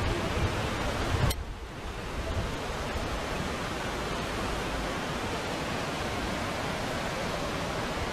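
Rough sea and storm wind: a steady rushing noise of waves and wind. About a second in it cuts off abruptly, drops, then builds back to the same steady rush.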